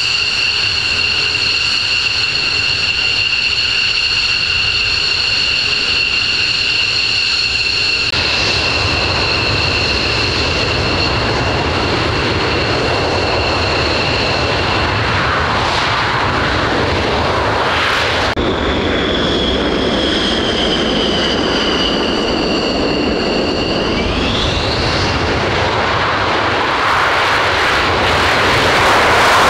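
Boeing F-15C Eagle's twin Pratt & Whitney F100 turbofans running at taxi power: a steady high-pitched whine over a jet rumble. About two-thirds through, the whine slides down and then sweeps back up, and the jet noise grows louder near the end.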